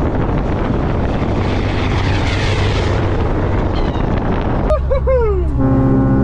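Ford cabover semi truck driving past, its engine and road noise swelling and then fading as it goes by. Near the end, inside the cab, the truck's air horn blows a steady chord.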